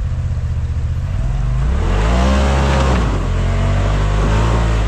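Can-Am Maverick X3 Turbo R side-by-side's turbocharged three-cylinder engine running low under load, then revving up louder about two seconds in and holding the higher revs.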